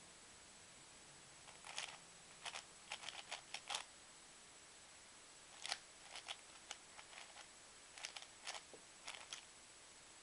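Plastic 3x3x7 cuboid puzzle being twisted by hand: three runs of quick clicking layer turns separated by short pauses, as the edges are scrambled.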